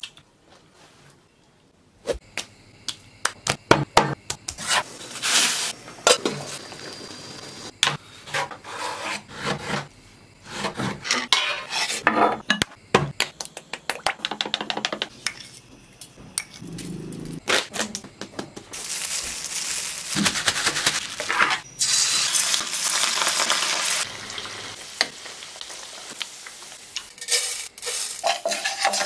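Kitchen cooking sounds: utensils and dishes clinking and knocking on plates and a metal tray, then food sizzling as it fries in a pan for several seconds about two-thirds of the way through.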